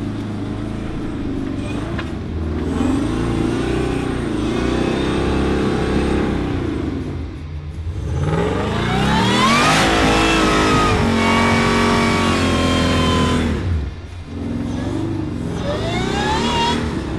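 Jeep engine revving up and easing off again and again under load, with a long climb in pitch about eight seconds in and another rise near the end.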